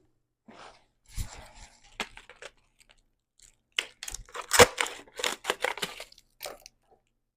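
Packaging being wrestled open by hand: irregular crinkling, crackling and tearing, with a busy flurry of sharp crackles about four seconds in.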